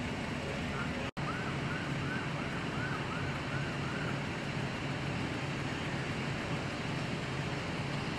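Steady engine hum with a faint emergency-vehicle siren in yelp mode: quick rising-and-falling yelps, about three a second, for roughly three seconds, starting just after a brief dropout about a second in.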